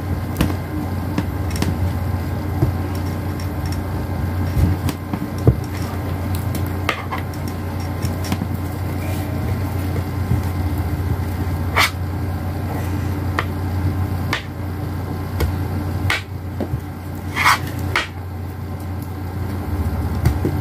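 Irregular light knocks and taps of a plastic toy knife chopping and pressing playdough on a tabletop, every second or two, over a steady low hum.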